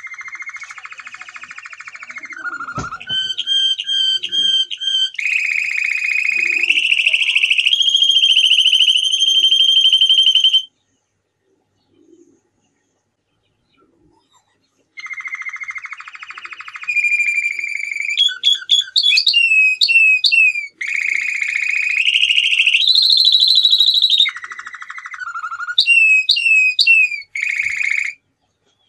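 Male domestic canary singing in two long phrases of rapid trills and rolls, each trill held for a second or two before switching to a new one, with quick downward-sliding notes in between. About four seconds of pause separate the two phrases.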